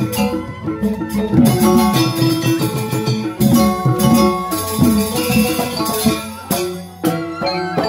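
Balinese joged bumbung gamelan playing: bamboo xylophones ring out a fast, dense melody over kendang drum strokes, easing off briefly about seven seconds in before the ensemble comes back in with a sharp hit.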